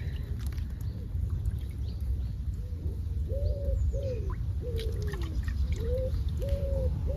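A pigeon cooing in a repeated run of short, falling coos, starting about two and a half seconds in, over a steady low rumble.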